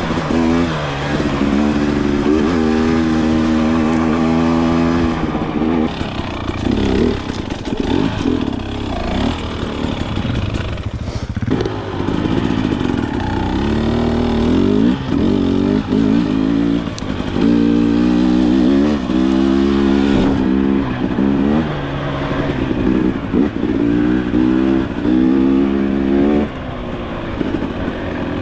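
2023 TX300 dirt bike's two-stroke engine being ridden hard, revving up and dropping back over and over, its pitch rising and falling with the throttle and gear changes.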